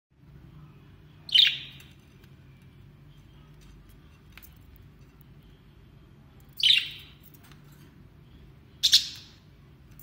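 Three short, loud budgerigar chirps, spread out with the last two about two seconds apart, over a steady low hum.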